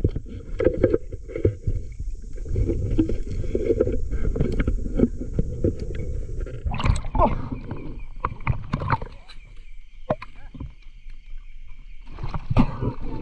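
Water sloshing and splashing with small knocks as a spearfisher gets into the water. About seven seconds in the sound changes: the sloshing thins out and a steady high whine comes in, with scattered knocks.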